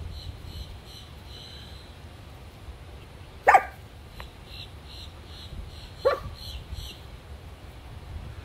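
Chihuahua giving two short, sharp barks about two and a half seconds apart, the first the louder, barking at a box turtle in the grass in front of it.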